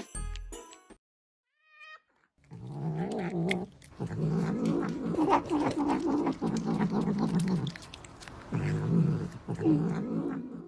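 Cat making a long, low, wavering yowl-growl. It comes in two stretches, one of about five seconds starting a couple of seconds in and a shorter one near the end.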